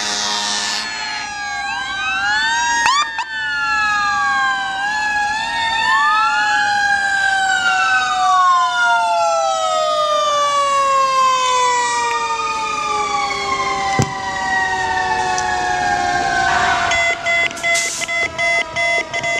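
Sirens of several emergency vehicles (police car, ambulance and fire engine) wailing at once in overlapping rising and falling tones. One tone slides slowly down over several seconds, and near the end a rapid on-off pulsing tone joins in.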